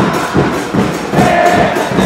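A football crowd chanting a song in unison, over a steady beat of drums.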